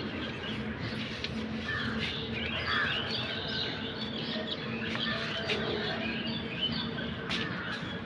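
Small birds chirping and twittering, busiest in the first half, over a steady low background hum with a few faint clicks.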